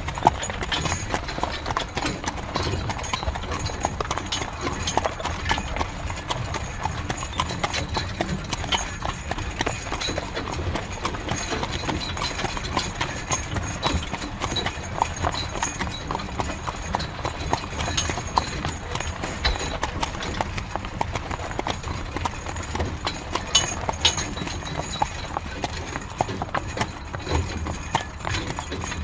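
Horse-drawn carriage on the move: hooves clip-clopping in a quick, continuous run of knocks over the low rumble and rattle of the wooden cart.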